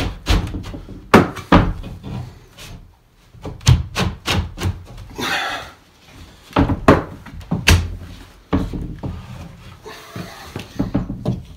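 Cement board panel being pushed and knocked down into place in a shower wall: a series of sharp knocks and thumps, with a short scraping rasp about five seconds in as the board is forced against the corners.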